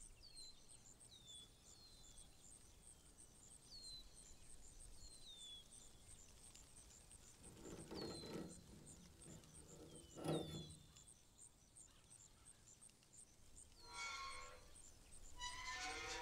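Countryside ambience: a fast, even high pulsing with a short falling bird chirp repeated every second or so. About halfway in come two dull thumps. Near the end there are two drawn-out creaks as the bunker's heavy hatch lid is pushed up and open.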